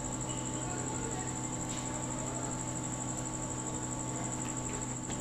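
Crickets trilling steadily in a constant high-pitched chorus, over a faint low hum, with a couple of faint ticks.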